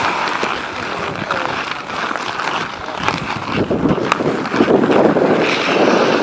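Outdoor ice hockey play on pond ice: skates scraping and sticks clicking, with wind buffeting the microphone and growing louder about halfway through.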